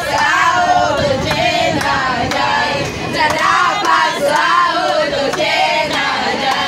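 A group of young women singing together in chorus, clapping their hands along with the song.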